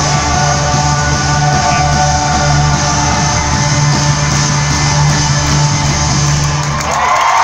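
Live rock band playing at full volume through an arena PA, with guitars over a steady bass line. The bass and band drop out about seven seconds in as the crowd starts to cheer.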